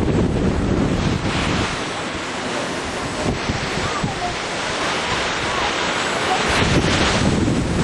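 Wind buffeting the microphone: a steady rushing noise with uneven low rumbling gusts, growing brighter near the end.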